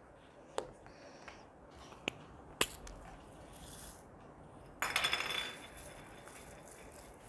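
Slime being handled by hand: a few sharp clicks and pops, then a crackling squelch lasting about a second, just under five seconds in.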